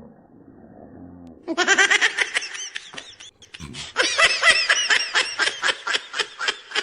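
High-pitched laughter sound effect: a rapid 'ha-ha-ha' of about five laughs a second, in a short burst and then a longer one after a brief pause. Before it starts, a quieter low drone.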